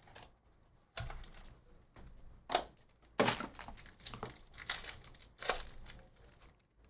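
Foil wrapper of a Panini Court Kings basketball card pack crinkling and tearing as it is pulled open by hand, in a string of sharp crackles.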